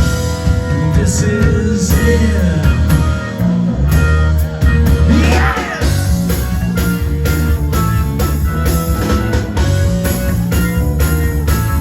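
Live psychedelic rock band playing an instrumental passage with electric guitar, bass and drums, loud and steady, with a run of gliding, bending notes about five seconds in.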